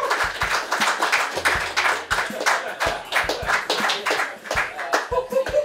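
A crowd of people clapping, many sharp claps in a dense, irregular patter, with a few voices starting to call out near the end.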